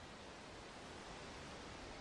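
Faint, steady background hiss with no distinct sound in it.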